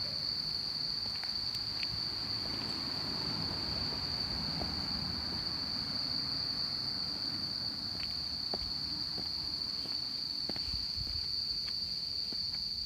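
Dense insect chorus at dusk, a loud, steady high-pitched trill with no break. Scattered light clicks and a low rumble sit underneath.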